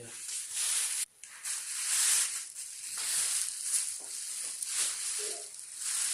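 Packaging material rustling and crinkling unevenly as a newly unboxed flat-screen TV is handled and unwrapped.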